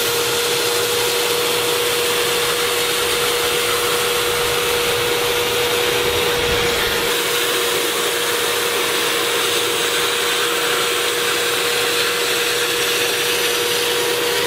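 Bissell SpotClean Pro Heat upholstery cleaner running steadily, its clear hand nozzle drawing water and dirt out of a wet fabric car seat. It makes an even rushing noise with one constant tone through it.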